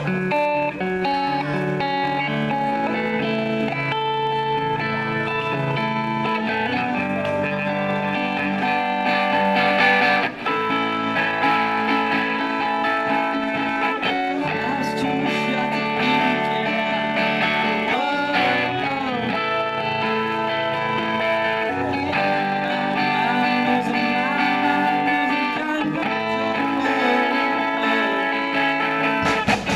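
Electric guitar playing sustained chords and picked notes, the instrumental part of a live band cover, with one very short break about ten seconds in.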